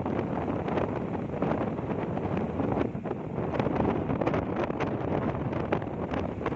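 Sea surf washing on a beach, a steady rushing noise with wind buffeting the microphone.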